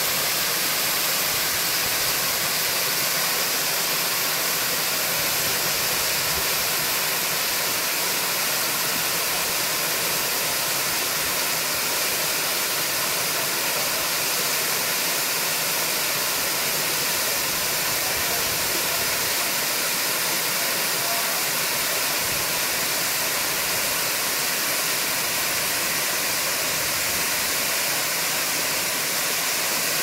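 Waterfall: a steady, unbroken rush of water falling down a rock face.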